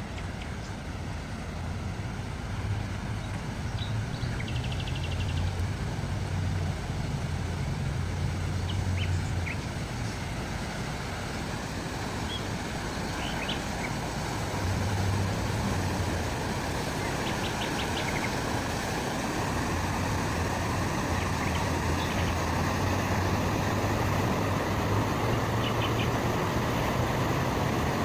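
Steady rumble of road traffic, its low hum swelling and fading as vehicles pass, with scattered short bird chirps over it.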